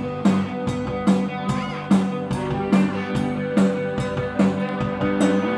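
Rock music with a drum kit keeping a steady beat under guitar and bass.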